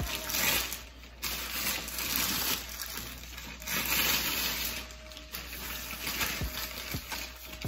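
Clear plastic wrapping crinkling and rustling in irregular swells as it is pulled along and off a long fishing rod.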